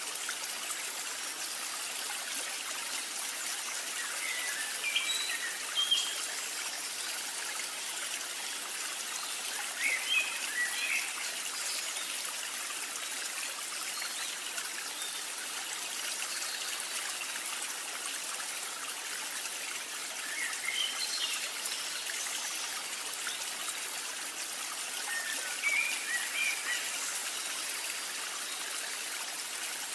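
Steady trickle of running water like a small stream, with a few short bird chirps now and then.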